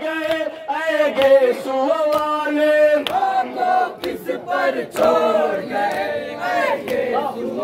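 Men singing a noha, an Urdu mourning lament, with a crowd of men chanting along and chest-beating (matam) slaps keeping time about once a second.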